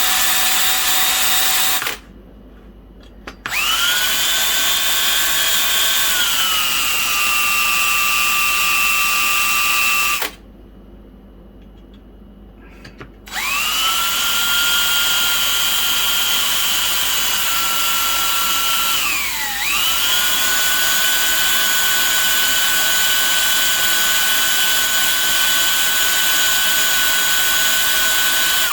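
Electric drill with a 1/8 inch bit drilling out brass rivets. It runs in three spells with two short stops. Its whine drops in pitch twice as the bit bites under load.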